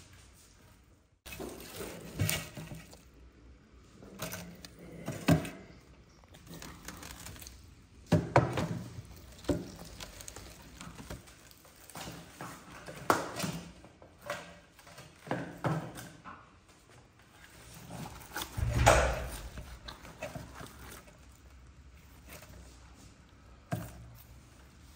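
A whole roast sheep being pulled apart by hand and cut with a knife on a metal tray: irregular cracks and tearing as joints and meat come apart, with knocks against the tray, the loudest about 19 seconds in.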